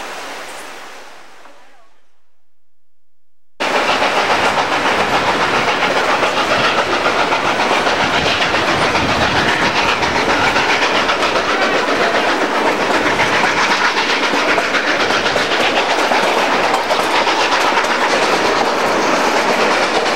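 Steady clatter and rumble of a steam train's passenger cars running over the rails, starting suddenly about three and a half seconds in after a brief silence.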